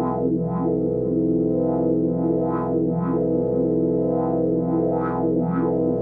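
Dave Smith Evolver synthesizer playing a chord sequence patch: a held chord with brighter accented stabs repeating about every half second.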